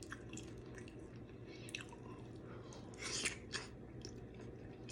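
Close-up mouth sounds of eating seafood: soft wet chewing and smacking with scattered lip clicks, a louder burst of smacking a little past three seconds in.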